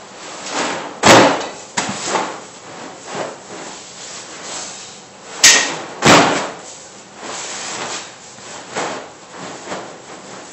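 An 80-pound homemade pellet sandbag heaved over a Smith machine bar and dropped onto the floor: loud heavy thuds about a second in and again twice around five and a half to six seconds in, with quieter knocks and scuffs between as the bag is picked up again.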